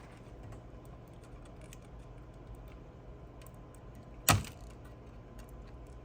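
A stiff cable connector inside a mixing console is being worked loose from its socket by hand, making small plastic clicks. About four seconds in there is one sharp snap as a side of the connector comes free.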